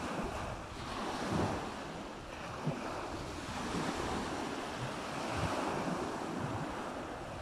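Waves washing onto a beach, swelling and ebbing every couple of seconds, with wind buffeting the microphone.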